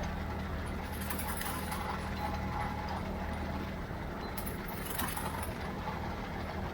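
Ford 3600 tractor running steadily while pulling a Brush King rotary mower, a low engine hum with scattered rattling and clicking from the machinery. The engine's low note weakens about three to four seconds in.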